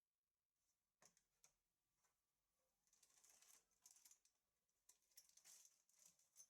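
Near silence, with a few faint clicks and soft rustles of small handling.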